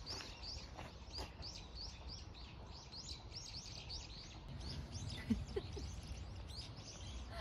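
Small bird calling outdoors: a fast run of faint, high chirps, several a second, thinning out after about four seconds, over a low steady outdoor rumble.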